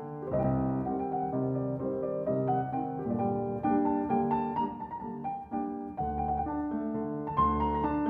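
Background piano music: a gentle melody over low bass notes, the notes changing every half second or so.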